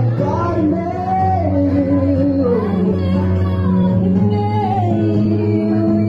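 Live band playing a slow ballad: a female and a male singer sing over acoustic and electric guitars and keyboard, in long held notes.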